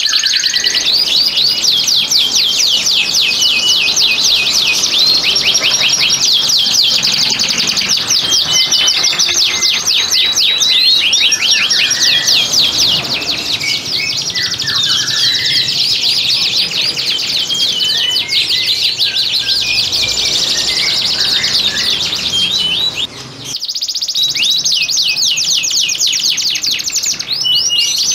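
Domestic canaries singing in breeding condition: long, fast, rolling trills, high-pitched and continuous, with a brief break about three-quarters of the way through.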